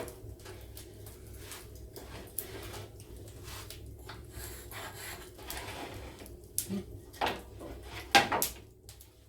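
Wooden workpieces being handled on a workbench: scattered knocks and taps with some rubbing, the loudest knocks coming close together near the end.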